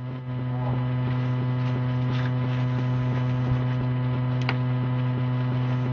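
A steady low hum with many overtones that swells in about a third of a second in and then holds, with a couple of faint clicks.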